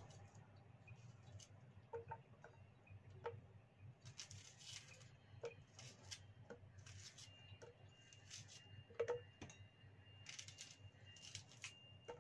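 Faint, scattered light taps and knocks, one louder about nine seconds in, as shallot pieces are handled and dropped into a small blender jar.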